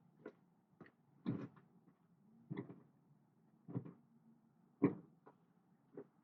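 Toyota Camry brake pedal being pumped repeatedly during brake bleeding: a regular knock with each stroke, about one every second and a bit. The pedal firming up as the air is bled out of the line is what the pumping is checking for.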